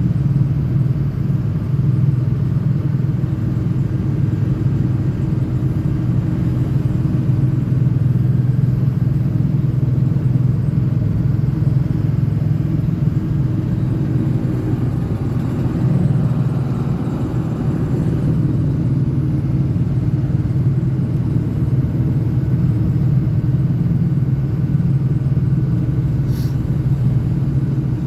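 Ford 6.0L Power Stroke diesel truck driving at a steady cruise: a continuous low engine drone mixed with road noise, swelling slightly about two-thirds of the way through. A brief faint tick near the end.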